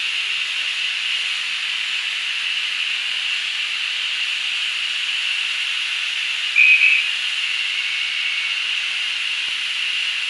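Narrow-gauge steam locomotive hissing steadily as it stands ready to leave. About two-thirds of the way through comes one short, high toot of its whistle, the loudest sound, with a faint trailing tone after it.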